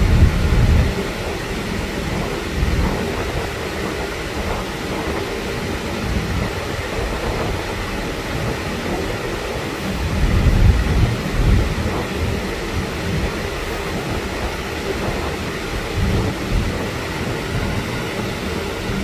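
Wind buffeting a phone microphone in low gusts over a steady rumbling hiss; the gusts swell near the start, about ten seconds in and again about sixteen seconds in.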